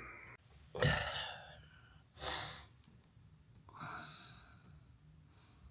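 A man sighing or breathing out three times, short soft breaths about a second and a half apart.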